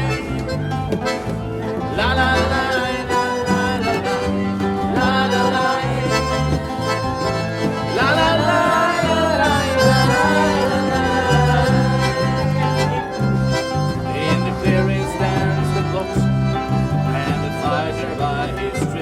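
Live band playing an instrumental country-style passage: guitars over a bass line that steps from note to note, with a held lead melody on top.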